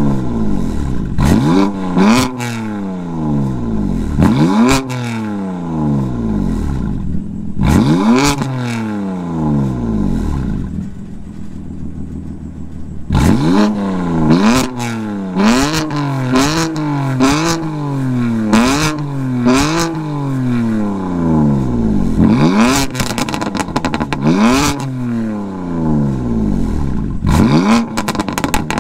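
De-catted BMW F80 M3 with its S55 twin-turbo inline-six free-revving with the exhaust valves open: a series of sharp throttle blips, each rising quickly and falling back, with a rapid run of short blips in the middle. Crackles and pops come out of the exhaust as the revs fall.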